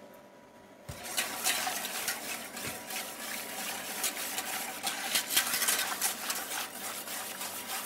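Wire balloon whisk stirring a thin sauce in a large stainless steel stockpot, its wires scraping and clicking against the metal sides and sloshing the liquid. It starts about a second in and runs on as a busy stream of scrapes and clicks.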